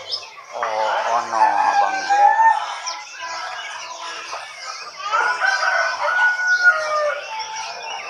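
A rooster crowing twice, the first crow about half a second in and the second around five seconds in, over the constant chirping of many caged songbirds.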